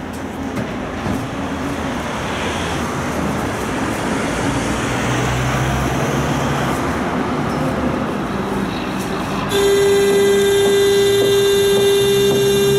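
Tram running and drawing up at a stop, its rumble and low motor hum building. About three-quarters of the way through, a loud steady buzzer tone starts suddenly and holds.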